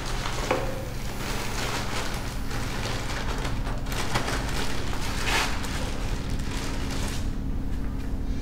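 Dark ambient film drone: a low steady hum under a rushing, crackling noise that swells in the middle and thins out about seven seconds in.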